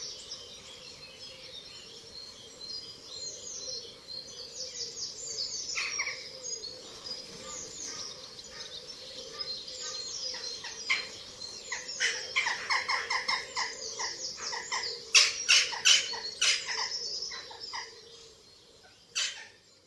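Wild songbirds chirping and singing: many short high chirps that slide downward, growing busier and louder in the second half, with a few sharp loud calls near the end. A faint steady hum lies underneath.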